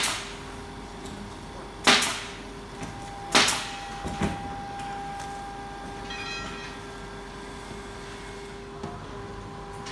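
Electronic roulette gaming machine sounding steady electronic tones, with a short run of chime notes about six seconds in. Two sharp knocks come about two seconds and three and a half seconds in, with a fainter one just after four seconds.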